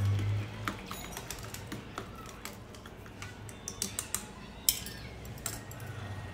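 A utensil clicking and tapping irregularly against a mixing bowl as yogurt, gram flour and water are mixed into a smooth kadhi batter, with one sharper click near the middle.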